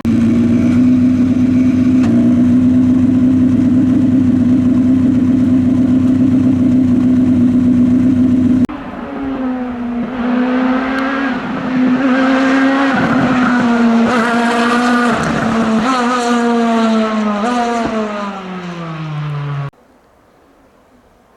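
Rally car engines at full throttle. First one engine is held at a steady high pitch for about eight seconds. Then a car accelerates hard, its pitch climbing and dropping with each gear change before falling away, and the sound cuts off abruptly about two seconds before the end.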